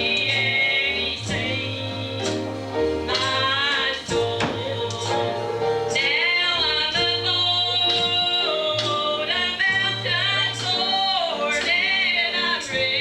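Gospel singing with a band: a lead voice gliding and bending over steady bass notes, with a regular drum beat.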